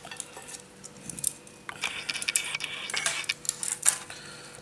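Metal kitchen tongs clinking and tapping against a ceramic plate and a metal baking tray, a quick irregular string of light clinks.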